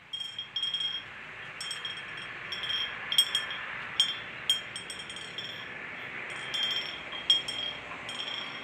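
Homemade bird-scaring bell clinking at irregular moments, each strike giving a short, high ringing tone, over a steady hiss.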